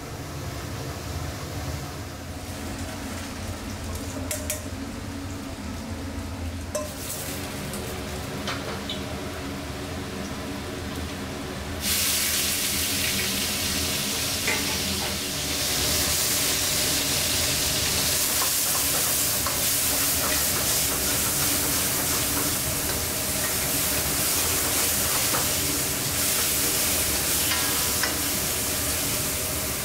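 Steady low kitchen hum with a few light clinks, then about twelve seconds in a loud sizzle starts abruptly as sliced meat fries in hot oil in a carbon-steel wok over a high gas flame. The sizzle keeps going, a little louder after a few more seconds, while the meat is stir-fried and the wok flares.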